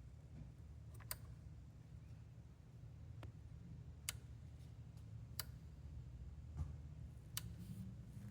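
Six sharp separate clicks at irregular gaps of one to three seconds, over a faint low rumble.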